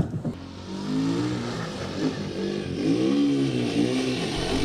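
1986 Honda ATC200X three-wheeler's single-cylinder four-stroke engine revving up and down as it is ridden, starting about a second in.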